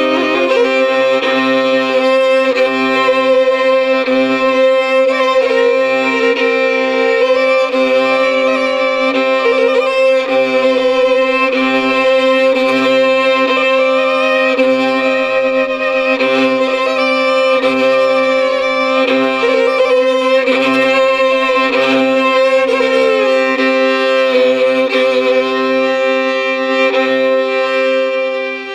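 Solo fiddle playing a slow traditional air, with steady drone notes held under the moving melody.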